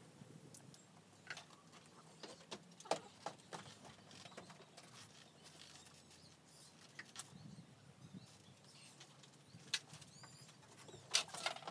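Scattered light taps and knocks from hand work on a van's timber-batten subfloor, with a short run of high chirps about 10 seconds in.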